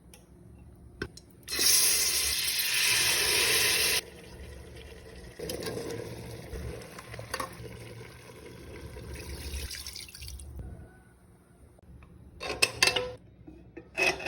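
Kitchen sink tap running hard for about two and a half seconds and shut off abruptly, followed by softer, uneven running water for several seconds, then a few sharp knocks near the end.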